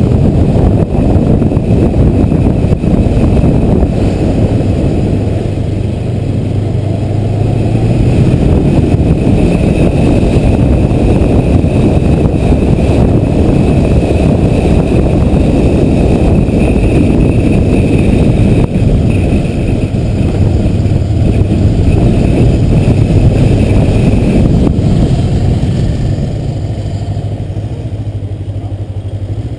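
Kawasaki motorcycle under way, its engine running under a dense rumble of wind on a helmet-mounted camera; the sound eases off near the end as the bike slows.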